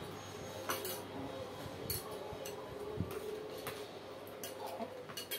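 Metal spoons clinking and scraping against plates and bowls during a meal, a scattered handful of short clinks.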